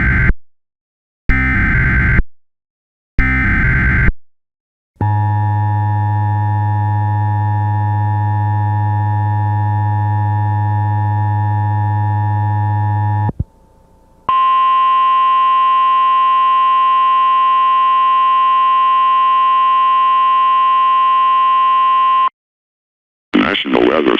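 Emergency Alert System tones. Three short bursts of SAME header data tones come first, then about eight seconds of the buzzing two-tone EAS attention signal. After a short pause comes about eight seconds of the steady 1050 Hz National Weather Service alert tone.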